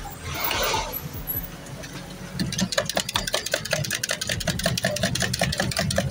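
An engine idling with a rapid, even ticking over a steady low hum, with a short hiss about half a second in.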